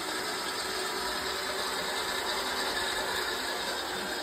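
Wabeco lathe running under manual control: a steady mechanical whir from its spindle drive and gears.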